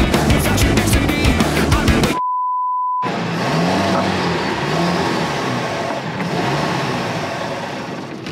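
Rock music, cut off about two seconds in by a short, steady censor bleep. Then a boat engine runs under wind and water noise, its pitch rising and falling about once a second as it surges and fades: a sign of fuel starvation, which the owner puts down to a blockage in the fuel filter or at the tank pickup.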